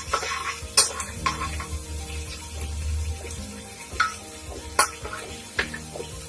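Chopped garlic, ginger and green chillies sizzling in hot oil in a pressure cooker while a spoon stirs them, with a few sharp knocks of the spoon against the pot.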